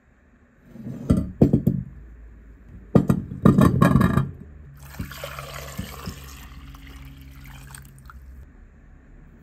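Small potatoes tumbling out of a glass bowl into a stainless steel saucepan, two bursts of knocking and clattering against the metal. Then water is poured over them from the bowl for about four seconds, filling the pan.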